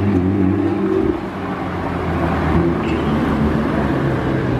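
Nissan GT-R R35's twin-turbo V6 engine pulling away at low speed. Its note drops in pitch at the start, holds for about a second, then quietens as the car drives off.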